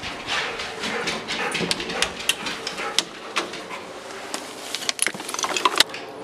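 Pet dogs stirring excitedly at the prospect of a walk: a busy run of scuffling, breathy noises and sharp clicks and taps, thickest near the end.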